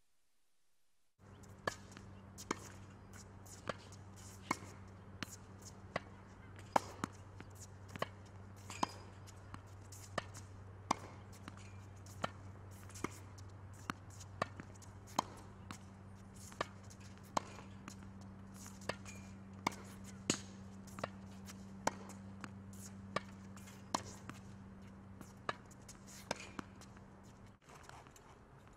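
Tennis balls being struck by a racket and bouncing on a hard court: a quick run of sharp pops, a little more than one a second. A steady low hum runs underneath.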